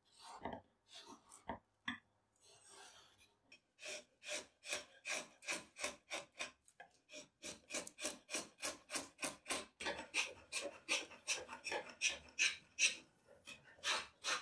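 Hand rasp strokes on hardwood: a few scattered scrapes, then from about four seconds in a quick, even run of rasping strokes, roughly three a second, as the stool's seat edge is shaped.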